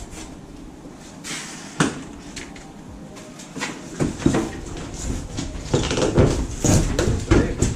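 A large cardboard shipping box being opened and its packing handled by hand: rustling, scraping and irregular knocks, with heavier thumps and scrapes in the second half.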